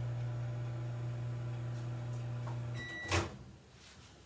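Microwave oven running with a steady low hum while heating marshmallows. About three seconds in, the hum stops with a short beep, and the door opens with a sharp clunk.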